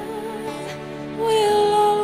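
Background music with a long held note that comes in, louder, a little over a second in.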